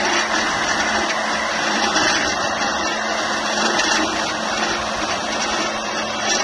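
BDS MAB 1300 magnetic drilling machine running steadily while drilling a 255 mm diameter hole in a pipe.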